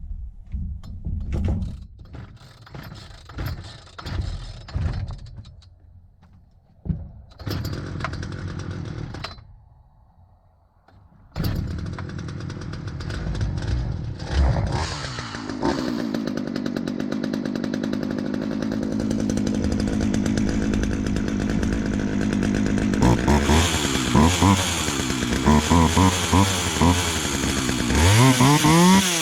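Craftsman two-stroke chainsaw being pull-started on its new fuel lines and primer bulb: several short pulls of the starter cord and a brief firing, then the engine catches about 11 seconds in and runs steadily. Near the end the throttle is blipped several times, revving it up and down.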